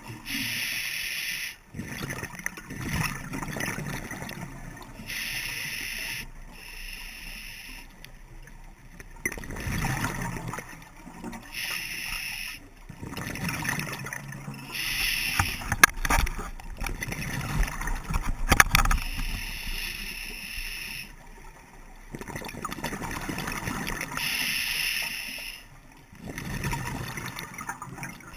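Scuba diver breathing through a regulator underwater: a hissing inhalation every few seconds, alternating with rumbling bursts of exhaled bubbles.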